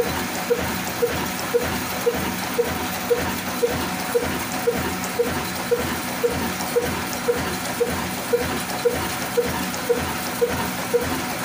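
Diamond 22 HP horizontal stationary diesel engine ('kala engine') running steadily at slow speed. It gives an even, sharp beat about twice a second over a constant mechanical clatter.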